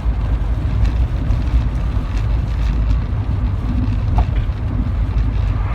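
Inside the cabin of a Rover 45 on the move: engine and road noise as a steady low rumble. The engine is misfiring, running on three cylinders from long neglect.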